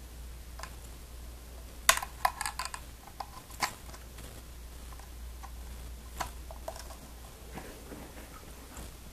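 Scattered light clicks and taps of RCA component cable plugs being handled and pushed into audio and video jacks, with a cluster of clicks about two seconds in, over a low steady hum.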